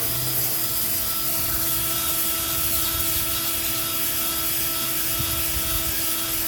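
Drill-driven cylinder hone working in an engine bore: a steady motor whine under a continuous scraping rasp of the stones against the cylinder wall.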